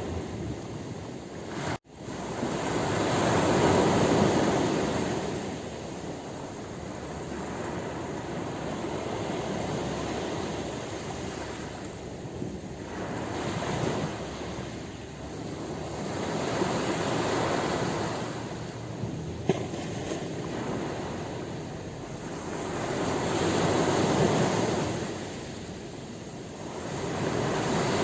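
Ocean surf: waves swelling and easing off in slow surges about every six to seven seconds. A momentary cut-out in the sound comes about two seconds in.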